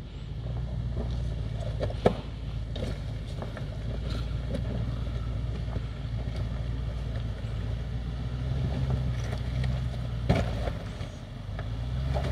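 Range Rover Sport crawling slowly over a loose rocky trail: a low, steady engine note with rocks cracking and popping under the tyres, one sharp crack about two seconds in.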